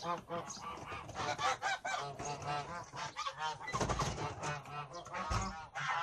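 Domestic geese honking: many short calls overlapping in quick succession, with a couple of dull low thumps a little past the middle and near the end.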